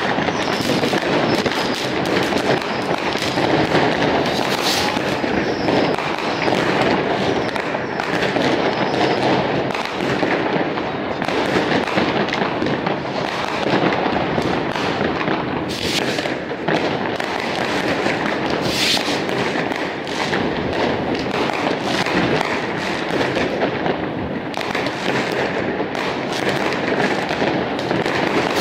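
Many fireworks going off at once: rockets and firecrackers make an unbroken, dense crackle of pops and bangs, with a few sharper, louder bangs standing out.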